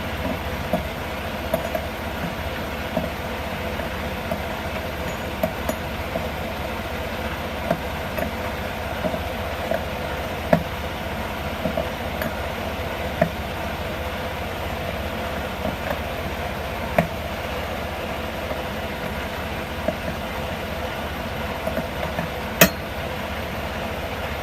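Steady low rumble of a running engine with scattered light clicks and knocks, and one sharper knock near the end.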